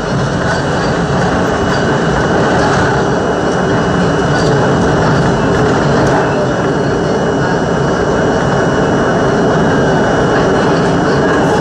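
R42 New York subway train running through the tunnel, heard from inside the front car: a loud, steady roar of wheels on rails and running gear, with a thin steady high tone through it.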